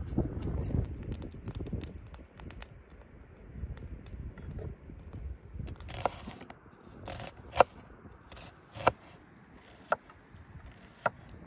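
Chef's knife slicing an onion on a wooden cutting board: about five sharp knocks of the blade against the board, roughly a second apart, in the second half.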